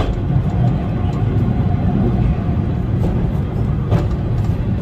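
Steady low rumble of a heritage railway carriage running along the track, with a couple of sharp clicks, one at the start and one about four seconds in.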